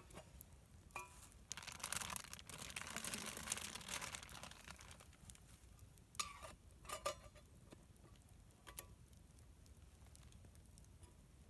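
Small potatoes being put from a crinkling plastic bag into a steel camp pot of boiling water, with a few short metallic clinks from the pot and its wire bail handle.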